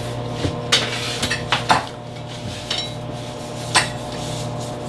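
A metal biscuit cutter clicks and clinks several times as it is pressed and twisted through biscuit dough onto the counter, the sharpest click near the end, over a steady low hum.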